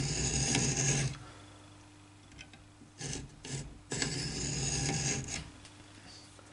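A full-size hacksaw cutting the starting slot in a tiny 3 mm steel spigot held in a vise. One rasping stroke is heard at the start, then a couple of short strokes about three seconds in, and a longer stroke from about four to five seconds.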